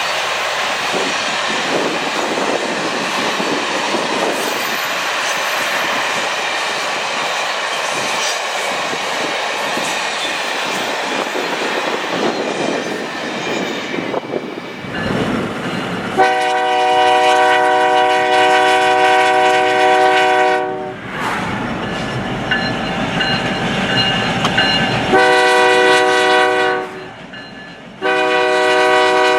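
Train rolling past with wheels clattering over the rail joints. After a cut, the horn of the lead locomotive, Canadian Pacific EMD SD70ACu 7015, sounds a steady multi-note chord in three blasts: a long one of about four and a half seconds, a shorter one of about two seconds, and another starting near the end.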